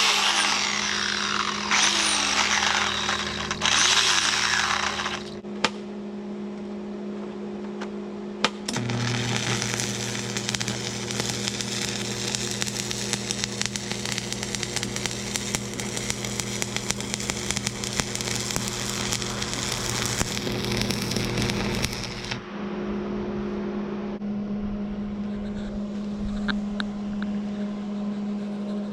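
Metalworking power tool working on steel, with a harsh stretch of about five seconds near the start and a longer crackling stretch of about thirteen seconds in the middle, over a steady electrical hum. It is part of the re-weld of a cracked hydraulic fitting on a log splitter.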